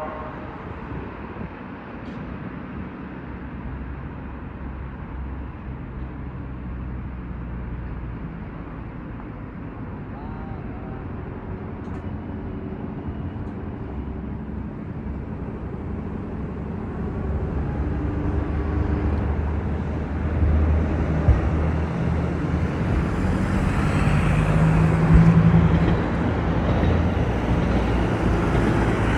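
Vehicle engine running with a steady low hum that grows louder over the last third, as if coming closer.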